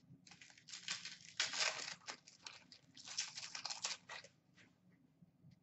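Wrapper of a 2016-17 O-Pee-Chee Platinum hockey card pack being torn open and crinkled: a run of rustling, tearing bursts for about four seconds, then only faint ticks.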